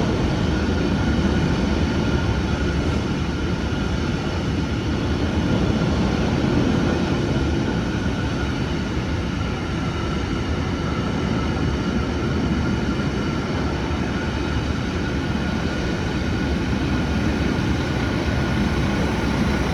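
Train running steadily: an even low rumble with a faint steady whine, holding the same level throughout.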